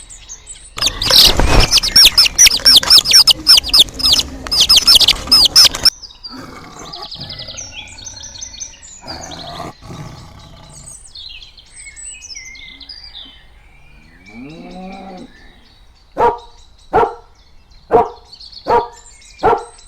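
A series of animal calls: a few seconds of loud, rapid, repeated bird chirping, then softer scattered bird calls and a short call that bends up and down in pitch. Near the end a dog barks steadily, about once every three-quarters of a second.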